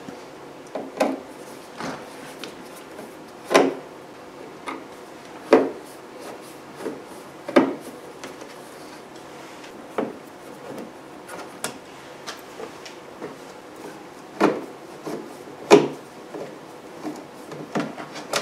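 Hand screwdriver working screws out of the inner trim panel on the underside of a 3rd-gen Camaro's rear hatch: scattered light clicks and knocks of tool, screw and panel, with a sharper knock every couple of seconds.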